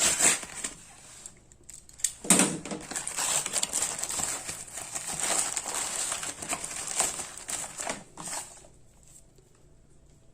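A bag crinkling and rustling in the hands as it is opened and unwrapped, with small irregular crackles; it stops about eight seconds in.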